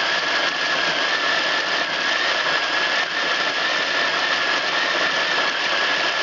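Krups die-cast conical burr coffee grinder running, its stainless steel burrs grinding coffee beans: a steady high motor whine over an even hiss.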